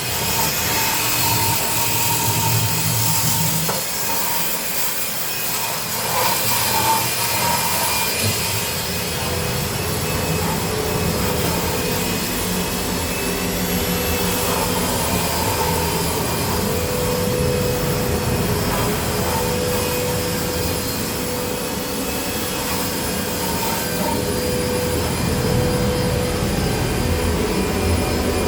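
A motor-driven machine running steadily, a constant whirring hiss with a steady whine in it.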